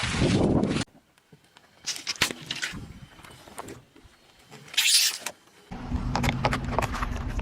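Short cut-together clips of objects being crushed under car tyres: a loud noisy burst that cuts off, scattered crackles, and a brief hiss, then a car engine running with a steady low hum near the end.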